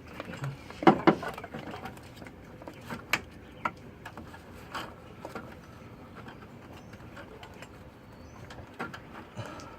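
Scattered clicks and knocks of hands working on the glow plug wiring harness and its connectors in a diesel engine bay, loudest about a second in and sparser after. Faint short bird chirps in the second half.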